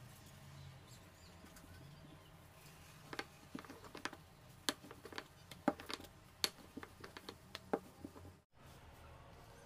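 A wooden rolling pin rolls dough out thin on a floured bamboo cutting board, giving light, irregular clicks and knocks of pin against board, about a dozen of them from about three seconds in.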